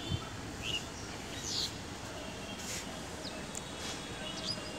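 A few short, high bird chirps, scattered a second or so apart, over steady outdoor background noise.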